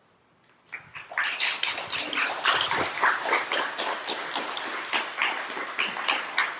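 Audience applauding, beginning about a second in and going on as a dense patter of claps.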